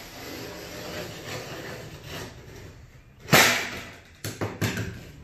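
A box-cutter blade scraping along the caulked joint of the bottom wooden trim on a plywood wall. About three seconds in there is one loud, sharp crack, followed by a few lighter knocks as the trim strip breaks loose.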